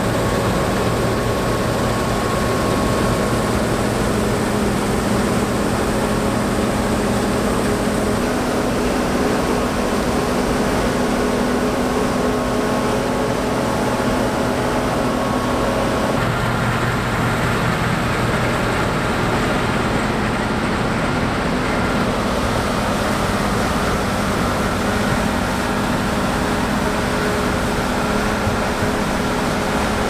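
Claas Trion 720 combine harvester, its 367 hp Cummins engine and threshing gear running steadily while cutting winter barley: a continuous drone with several held tones. The mix of tones changes abruptly about halfway through.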